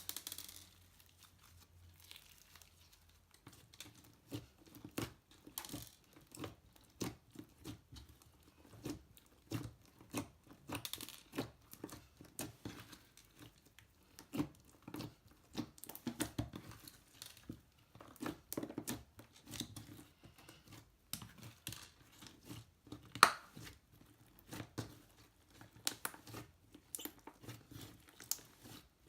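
Slime being stretched and squeezed by hand: a quick run of small sticky crackles, pops and tearing sounds that starts a few seconds in, with one sharper pop about two-thirds of the way through.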